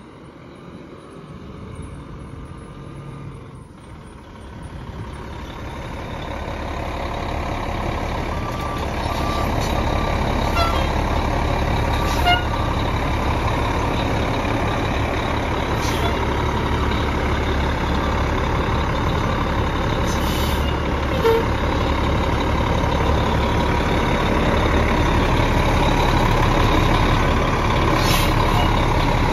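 Fire engine's diesel engine running steadily at idle, growing louder over the first ten seconds or so, then holding steady. A few brief sharp sounds stand out along the way.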